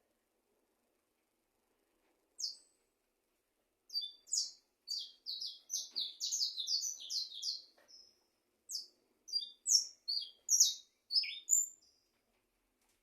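A small songbird singing: one short high chirp a couple of seconds in, then a quick run of chirps lasting about four seconds, then separate sharp chirps spaced out toward the end.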